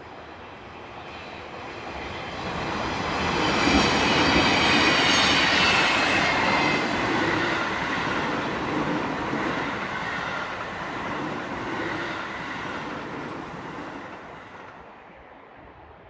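Commuter train passing by: it grows louder over the first few seconds, is loudest about four to six seconds in with a high whine that falls in pitch as it goes past, then fades away.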